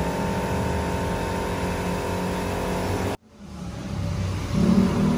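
A steady motor hum that cuts off abruptly about three seconds in, then fades back in and grows louder near the end.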